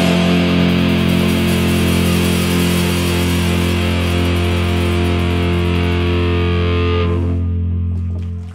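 Rock band's distorted electric guitars and bass holding one long final chord that rings on; the bright top of the sound dies away about seven seconds in, and the chord then cuts off suddenly near the end.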